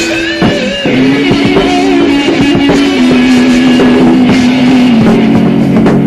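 Improvised rock jam recorded raw, with no mixing. A guitar holds long notes, bending them early on, then stepping down in pitch, over a drum kit.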